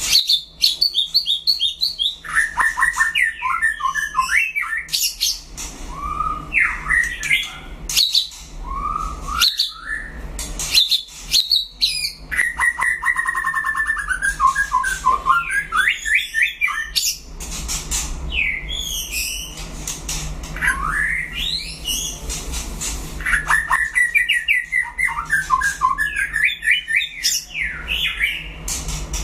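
White-rumped shama singing a long run of varied phrases: rapid trills, warbled and gliding whistles and sweeping up-slurred notes, broken by sharp clicking notes, with only brief pauses between phrases.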